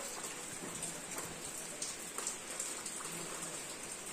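Steady hiss of rain falling, with a few faint taps scattered through it.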